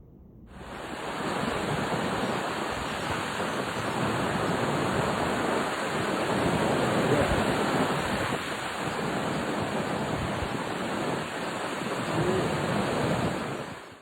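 Ocean surf breaking and washing, with wind on the microphone. It comes in about half a second in and builds over the next second.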